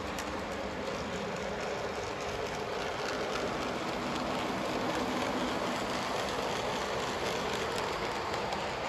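HO scale model steam locomotive and passenger coaches rolling along the track: a steady rattling hiss of small wheels on rails with faint clicks, a little louder as the train draws near about halfway through.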